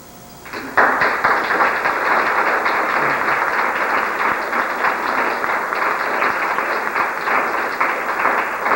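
An audience applauding: clapping starts suddenly about half a second in, holds steady, and fades out near the end.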